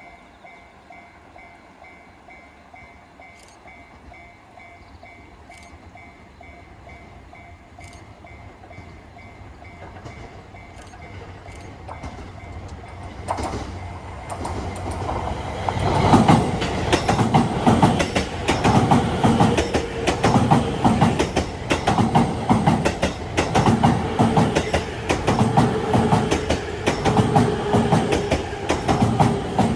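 Level-crossing warning bell ringing in an even pulse, then a limited express train approaching and passing over the crossing. The train builds from about twelve seconds in and is loud for the second half, its wheels clattering in a steady rhythm over the rail joints.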